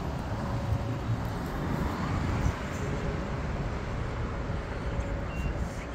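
Steady low outdoor rumble, such as road traffic or wind on an open street, with no distinct events.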